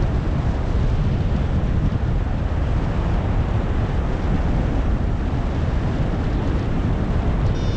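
Strong wind buffeting an action-camera microphone in paraglider flight: a steady, heavy rumbling rush with no let-up. A high, pulsing beep starts right at the very end.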